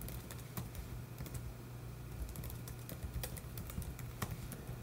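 Typing on a computer keyboard: irregular, scattered key clicks over a low steady hum.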